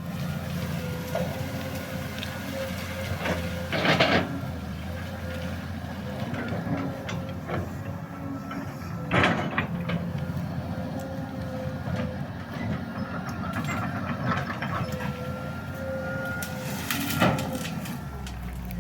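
Excavator's diesel engine running steadily with a hydraulic whine, broken three times by loud sharp cracks or knocks from the machine's work.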